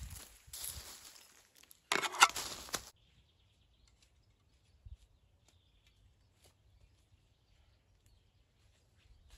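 Small metal spade digging into loose forest soil and dry leaves: scraping, crunching strokes, the loudest about two seconds in. After about three seconds, near silence with a faint high chirp and a few faint ticks.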